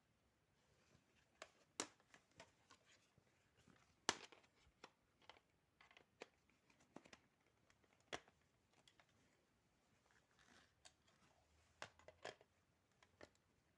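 Scattered light clicks and taps of small objects being handled, faint overall, with the sharpest click about four seconds in.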